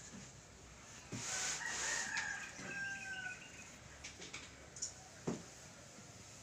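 A rooster crowing once, starting about a second in and lasting around two seconds, followed by a couple of short sharp knocks.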